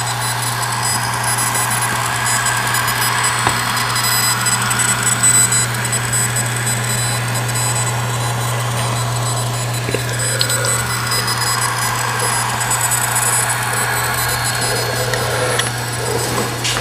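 Dell M65 notebook running with a steady low hum and several thin, high-pitched whining tones. The owner takes the whine for a fault of the whole model series, since a replacement unit makes the same noise.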